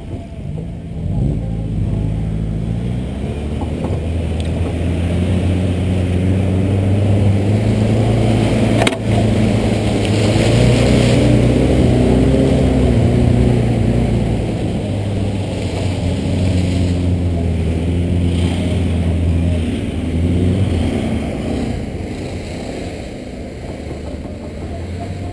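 The air-cooled flat-four engine of a 1964 Volkswagen bus pulling off road, its pitch rising and falling as it revs, loudest in the middle. There is a single sharp knock about nine seconds in.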